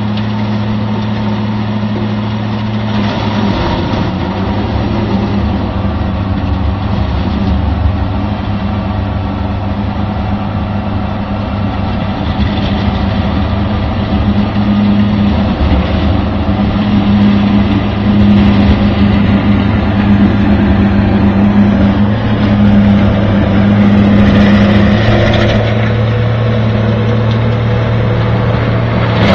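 Valtra tractor's diesel engine running steadily under load while its rear-mounted rotary milling drum cuts stumps and roots out of a peat field. It is louder from about the middle to near the end as the machine works close by.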